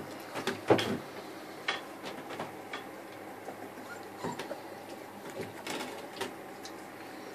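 Bull terrier puppies eating from a steel bowl: irregular light clicks and knocks, with a louder cluster under a second in.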